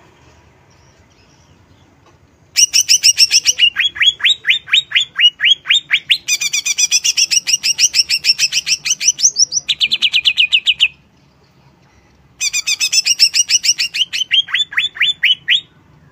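Greater green leafbird (cucak ijo) singing in two long runs of fast, evenly repeated chirping notes, the first about eight seconds long, the second about three, with a short break between.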